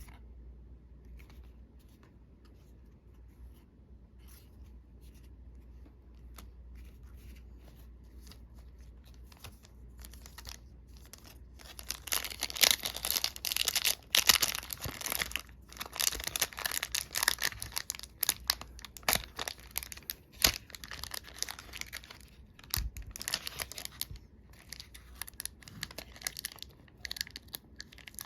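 Foil booster pack wrappers being crinkled and torn open by hand. Faint light clicks for about the first twelve seconds, then loud, irregular crackling and crinkling.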